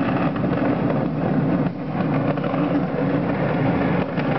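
Dense, continuous crackle and bangs of many fireworks and firecrackers going off at once, a steady wall of pops with no break.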